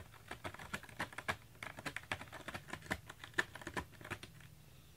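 A quick, irregular run of short clicks and crackles from a cat close by, several a second, stopping shortly before the end.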